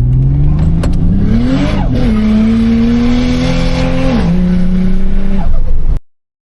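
Turbocharged Ford Barra straight-six of a modified FG Falcon XR6 Turbo pulling under acceleration: the engine note climbs, breaks about two seconds in, climbs steadily again and drops in pitch just after four seconds before climbing once more, then cuts off suddenly near the end.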